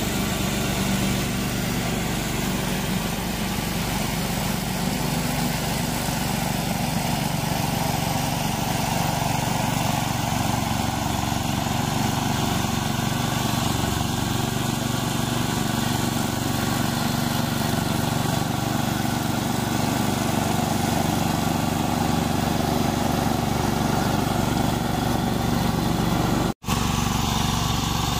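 Small gasoline engine of a walk-behind mower running steadily under load while cutting tall, overgrown grass, cutting out for an instant near the end.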